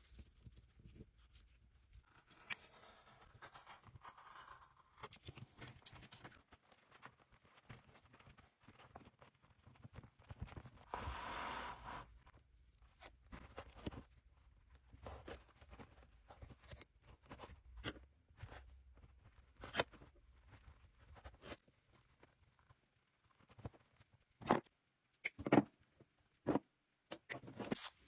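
Faint handling sounds from hands-on work on a leather baseball glove: scattered clicks and taps with short stretches of rubbing and scraping, a longer rasping stretch a little past ten seconds in, and a few sharper knocks near the end.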